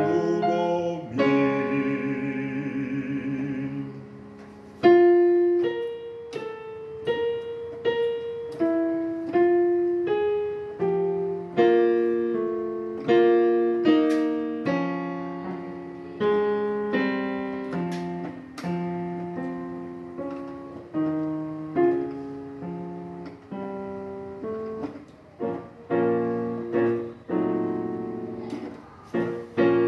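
Electronic keyboard set to a piano sound playing a slow instrumental passage of chords and melody, each note struck and then fading away.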